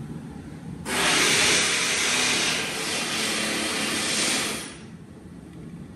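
Compressed-air blow gun letting out a steady hiss of air for about four seconds, starting suddenly about a second in and fading out near the end, as it blows out LS rocker arms to clean them.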